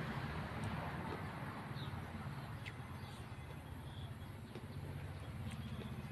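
Outdoor ambience: a steady low rumble, with a few faint short high chirps and several small sharp clicks.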